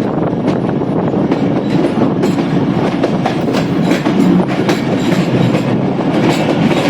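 Passenger train running, its wheels clattering over the rail joints with many sharp clicks, heard from the open doorway of a moving coach.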